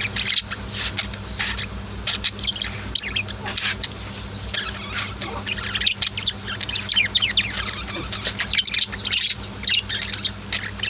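Pet budgies and lovebirds chirping and twittering, a dense, busy stream of short high chirps and quick whistled sweeps from several birds at once, over a steady low hum.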